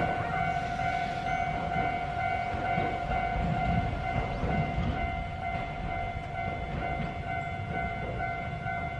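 Japanese level-crossing warning alarm ringing with its rapidly repeating electronic tone. Under it is the low rumble of a Hankai Tramway Mo 501-type tram, car 504, running on the track.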